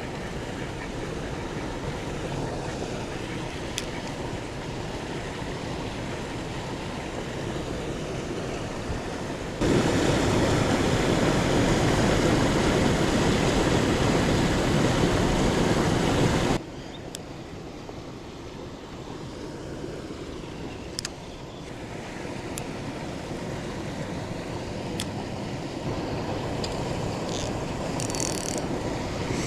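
Steady outdoor rushing noise, like wind or moving water, with no speech. It steps abruptly louder about ten seconds in and drops back about seven seconds later, with a few faint clicks near the end.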